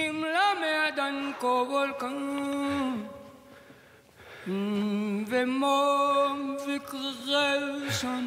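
A single voice singing slow, drawn-out notes like a chant, in two phrases with a short pause about three seconds in.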